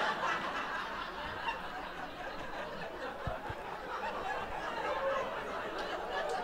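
Comedy club audience laughing at a punchline, a crowd of many people laughing together that holds steady and eases off slightly near the end.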